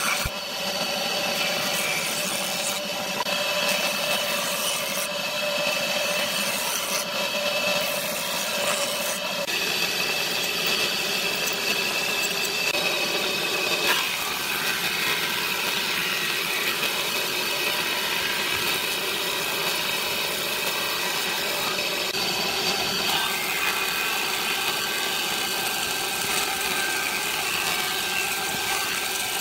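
Electric power tool running steadily on wood, a continuous motor whine with the sound of the cut or the abrasion; the tone shifts about a third of the way through and again about halfway.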